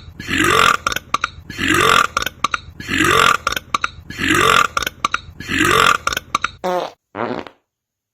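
A man's belch repeated at an even pace about every 1.3 seconds, each one noisy with a rising pitch inside it and crackly clicks between, like a looped clip. Near the end come two shorter, more tonal sounds, then it cuts off.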